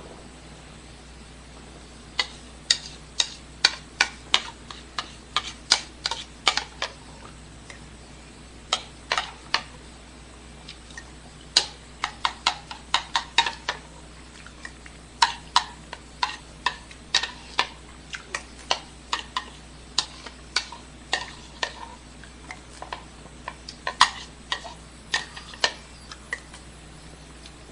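Dip pen nib scratching across paper in quick short inking strokes, coming in runs with brief pauses between, over a faint steady low hum.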